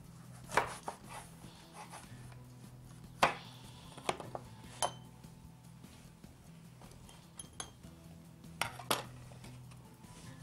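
Chef's knife knocking on a wooden cutting board as eggplants are cut into wedges: sparse, irregular sharp knocks, a couple with a short metallic ring.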